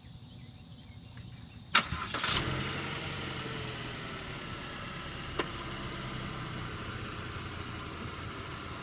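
2014 Chevrolet Sonic LTZ Turbo's four-cylinder engine starting: a brief crank a little under two seconds in, catching within about half a second, then settling into a steady idle. A single sharp click sounds during the idle.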